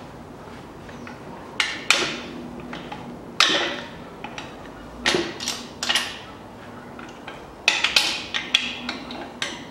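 Sharp metal clanks and clinks, several in quick clusters, some ringing briefly, as the crankshaft main bearing caps and their bolts are worked loose and lifted off a stripped-down engine block.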